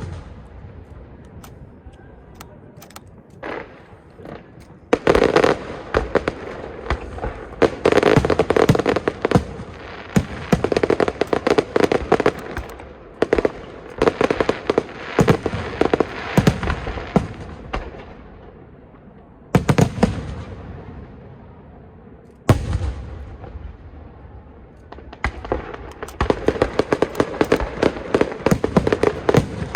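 Aerial fireworks shells bursting, with dense runs of rapid crackling and sharp reports. Loud bursts break in about 5 seconds in, near 20 seconds and about 22 seconds in, with quieter lulls between the volleys.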